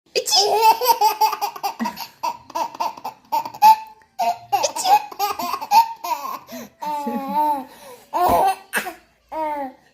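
A baby laughing hard in a long run of choppy bursts, with short breaks for breath between them.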